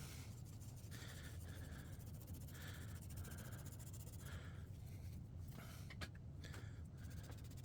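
Faint repeated back-and-forth rubbing strokes of a damp towel on paper glued to plywood, scrubbing the wet paper off a Mod Podge transfer, over a steady low hum.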